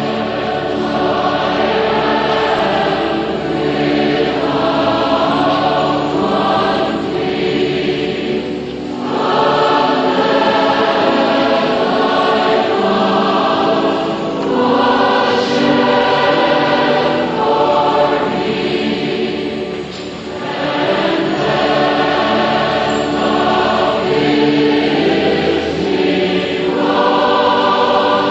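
Choir singing slow, sustained chords in long phrases with short breaks between them, over a low held bass note.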